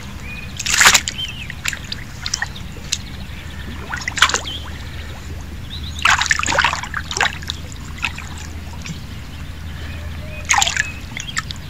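Water splashing and trickling in several short, irregular bursts.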